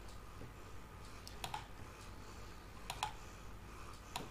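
A few faint computer mouse clicks, roughly a second and a half apart, over a low steady room hum.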